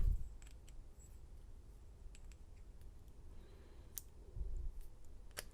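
Small scattered clicks and taps of a lock cylinder and its plug being worked by hand as a plastic follower is pushed in to remove the plug. There is a sharper click about four seconds in and another near the end, with a soft low thump between them.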